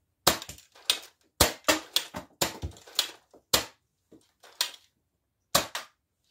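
Nerf Lawbringer dart blaster being primed and fired in quick succession: a run of about a dozen sharp plastic clacks, with a short pause about two-thirds through.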